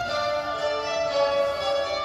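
Live music from a small ensemble of keyboard, qanun and double bass: a held melody moving from note to note over plucked strings.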